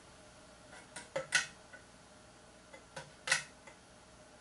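A few light metallic clicks and taps from handling a steel rifle action on the bench, in two small groups about a second in and about three seconds in, with quiet room tone between.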